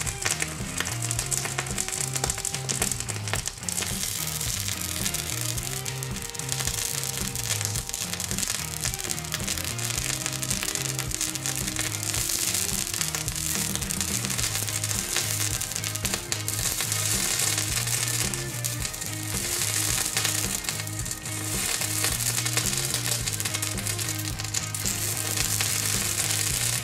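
A red-hot metal ball sizzling as a plastic toothpaste tube and toothpaste scorch against it, the hiss swelling and easing in waves. Background music with a repeating beat plays underneath.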